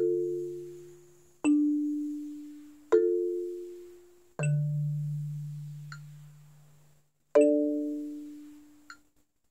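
Marimba struck with four yarn mallets: five chords at a slow, even pace about a second and a half apart, the last after a longer gap, each ringing and dying away.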